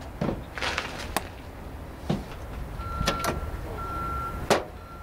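Scattered sharp metal clanks and knocks of tools and parts at a van's engine bay during engine removal. From about three seconds in, a steady high beep repeats in short dashes behind them.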